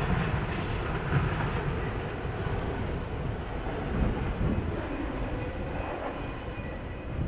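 Double-stack container train's cars rolling away on the rails: a steady rumble of wheels on track that slowly fades.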